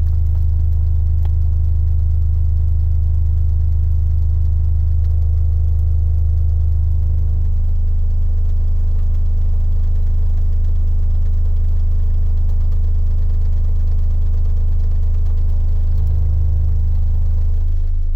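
A pair of sealed 10-inch MACH Audio car subwoofers playing a very low bass test tone near full output inside a Ford Mustang, a loud steady drone that shifts slightly about seven seconds in and again near the end.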